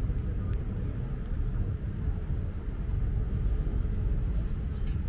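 Steady low rumble aboard a river tour boat cruising along: the boat's engine and moving air, even in level throughout.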